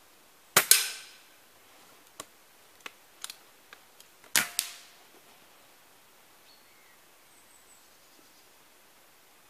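Two shots from pre-charged pneumatic air rifles, about four seconds apart, each a sharp report followed about a tenth of a second later by a second crack, the pellet striking the target. Between the shots come several small metallic clicks of a rifle action being cycled and reloaded.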